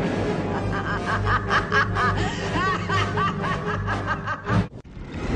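A woman laughing in a rapid run of short ha-ha bursts, a villain's laugh from an animated film soundtrack, over orchestral music with a steady low tone. The laugh and music cut off suddenly near the end.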